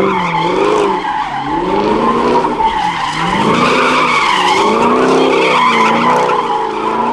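Chevrolet Camaro doing donuts: its tyres screech steadily while the engine revs rise and fall over and over.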